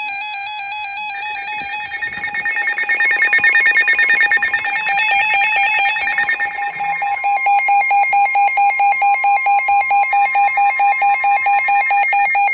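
Several NOAA weather radios sounding their alert alarms together for a severe thunderstorm warning: overlapping electronic beeping and warbling tones with a fainter steady tone underneath. In the second half one alarm beeps steadily at about four beeps a second.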